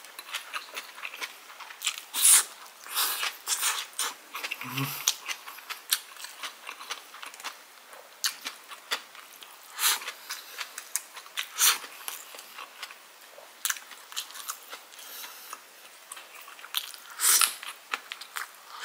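Close-miked chewing of kimchi and rice: wet, crisp crunching and smacking mouth sounds, with one short hummed "mm" about five seconds in.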